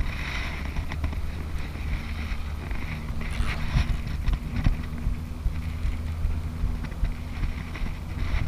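Wind buffeting an action-camera microphone: a steady low rumble throughout, with a faint steady hum beneath it. A few short clicks and rustles come about three to four and a half seconds in.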